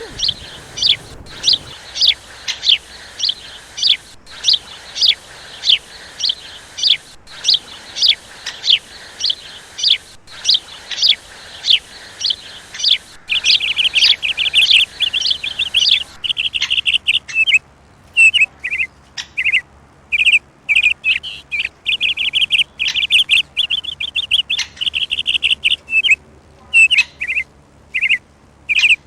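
Songbird chirping: a run of short, sharp falling chirps about twice a second, then from about halfway a fast, continuous twittering trill in bursts that start and stop abruptly.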